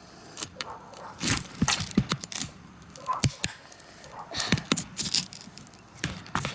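A phone being cut and pried open: an uneven run of clicks, cracks and scraping from the tool working into the casing, with a few longer scrapes.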